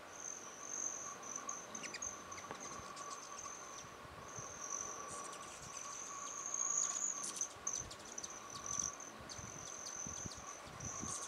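Hummingbirds at a feeder: a high, thin buzzing trill that breaks off and starts again several times, mixed with quick, sharp chip notes. The trill is loudest about seven seconds in.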